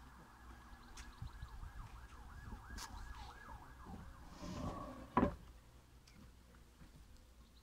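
A distant siren warbling rapidly up and down, fading out about four seconds in. A single loud thud comes about a second later.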